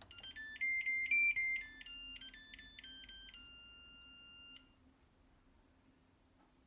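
Zojirushi BB-SSC10 breadmaker's electronic beeper playing a short tune of quick beeps, ending on one longer held note, as the Start button is pressed: the signal that the bread course has started.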